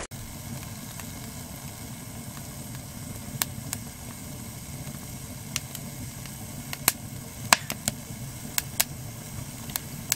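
A freshly lit wood fire burning in a small steel tent stove with its door open: a steady low rush of flame with sharp crackles and pops scattered through, coming more often in the second half.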